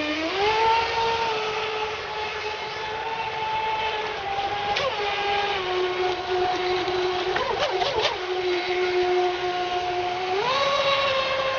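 RC jet boat's 3900KV brushless electric motor and 19 mm water jet whining under throttle. The pitch rises about half a second in, drops a step around five seconds, wavers briefly near eight seconds with throttle changes, and rises again near the end.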